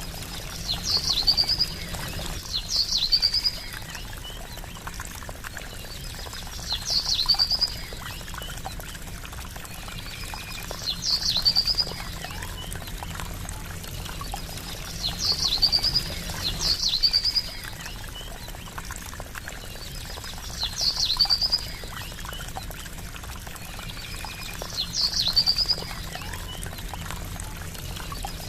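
Trickling water running steadily, with a short high bird call ending in a quick trill repeating every few seconds, often twice in a row.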